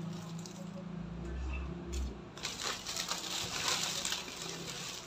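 Clear plastic packaging crinkling and rustling as it is handled. It starts about halfway through and is loudest near the end, after a low rumble in the first half.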